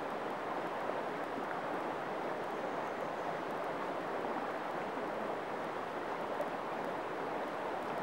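Shallow river water flowing steadily over a pebble bed, an even rushing sound that does not change.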